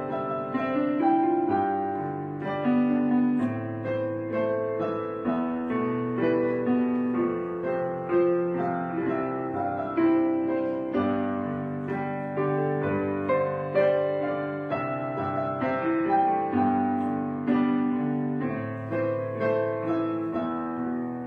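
Background piano music: a slow sequence of held notes and chords.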